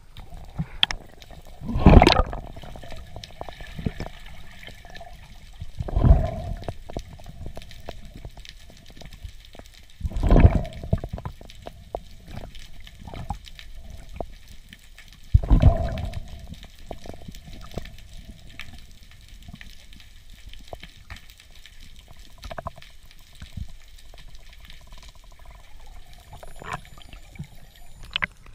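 Water heard underwater through a camera's waterproof housing: a muffled wash with four low whooshing surges a few seconds apart in the first half, then a quieter stretch with faint scattered clicks.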